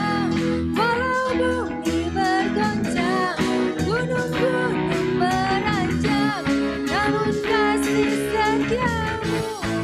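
A woman singing an Indonesian worship song with a live band of electric bass, keyboard, drums and electric guitar, the drums keeping a steady beat under the sung melody.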